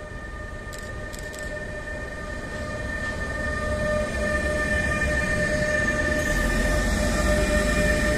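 E483 electric locomotive hauling a container freight train past at close range: a steady whine over the rolling of the wheels, growing louder as it nears. A deep rumble from the wagons joins about six seconds in.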